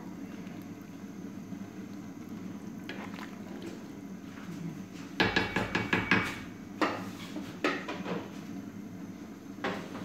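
Wooden spatula knocking against the rim of a large aluminium cooking pot: a quick run of taps about five seconds in, then a few single knocks, over a steady low hum.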